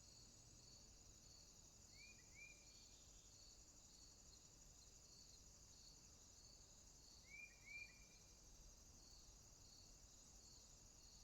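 Faint warm-weather ambience of insects and a bird: a steady high trilling of crickets with a softer chirp repeating under a second apart, and a bird giving a short two-note call twice, about two seconds in and again near seven and a half seconds.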